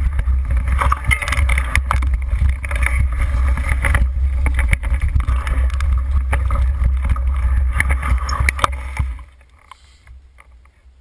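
Mountain bike riding a rough dirt trail: wind buffeting the microphone, a low rumble and frequent rattling clicks from the bike. About nine seconds in, the noise stops abruptly as the bike halts, leaving only a few faint clicks.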